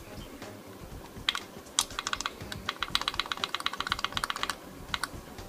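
Buttons of a small digital kitchen timer being pressed to set it: two single clicks, then a fast run of about ten clicks a second for a couple of seconds, then a few more.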